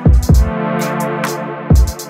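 Background electronic music: sustained synth chords over a drum-machine beat, with deep kick drums at the start and again near the end, and crisp high percussion hits between them.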